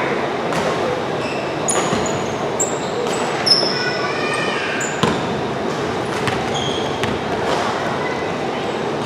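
Basketball being played in a hall: the ball bouncing, with several short high squeaks of sneakers on the court floor, over a steady murmur of voices.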